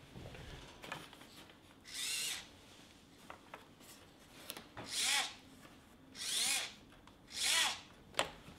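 RC plane's rudder servo whirring in four short bursts, each rising and falling in pitch, as it swings the rudder and the steerable nose wheel linked to it. A sharp click comes near the end.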